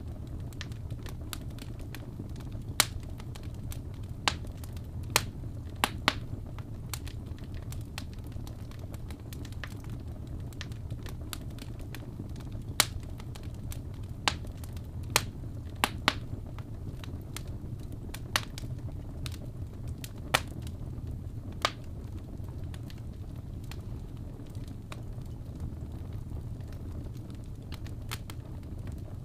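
Wood fire burning in a fireplace: a steady low rumble of flames with irregular sharp crackles and pops, a dozen or so louder snaps scattered through.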